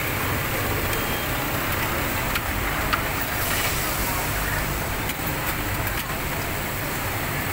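Steady background machinery noise of a garment factory floor: an even low rumble with a hiss above it, without change throughout.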